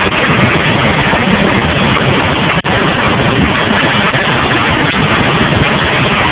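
Loud, steady din of motor-driven strip-processing machines running while material is fed through them. The sound cuts out for an instant about two and a half seconds in.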